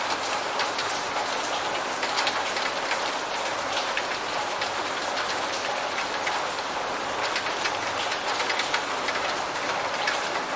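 Steady rain, a dense patter of many individual drops ticking over an even hiss.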